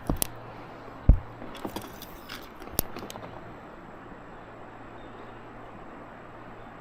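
Metal and plastic fishing gear clicking and rattling as it is handled on a kayak, with one louder thump about a second in, then a steady faint hiss of the river.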